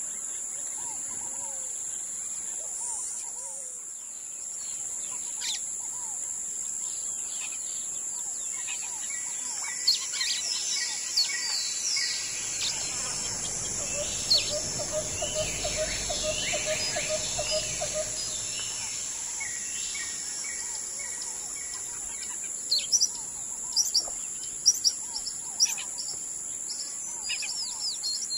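Many birds calling and chirping, with short whistles and trills coming thickest around the middle and again near the end, over a steady high insect drone. A low rumble rises and fades in the middle.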